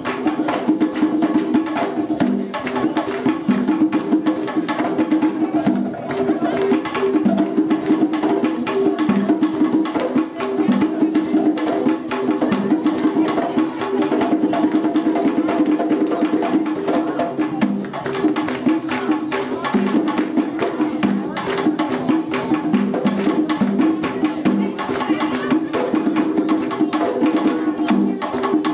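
Live African drumming: a group of drummers playing a fast, steady rhythm.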